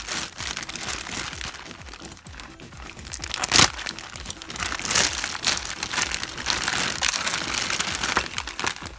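Clear plastic parts bags crinkling and rustling as they are handled and pulled open, with one sharp snap of plastic a little over three and a half seconds in.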